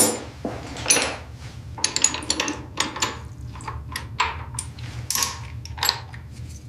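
Metal hand tools clinking and clanking at a plumbing repair: an irregular run of sharp clinks over a low steady hum.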